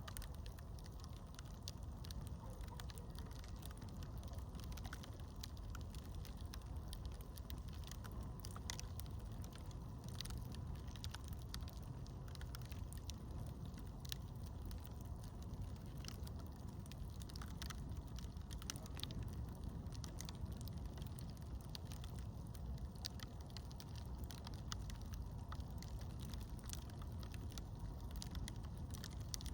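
Campfire crackling, with scattered sharp pops and snaps over a steady low rumble.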